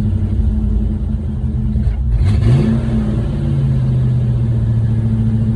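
1968 Ford Mustang engine idling while warming up, briefly revving about two seconds in, then settling back to a steady idle. The owner thinks the carburetor is probably what makes it want to stall.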